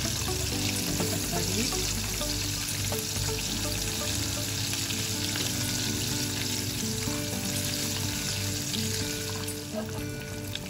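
Hot oil sizzling steadily as food fries in a pan, under background music with held notes.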